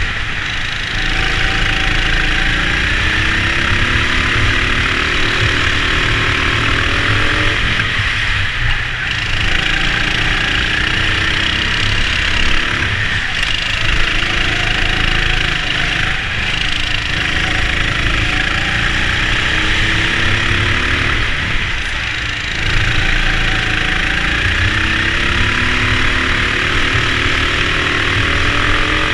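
Racing go-kart at full race pace. Its motor rises in pitch along each straight and drops back into the corners, about every four or five seconds, over steady rushing noise.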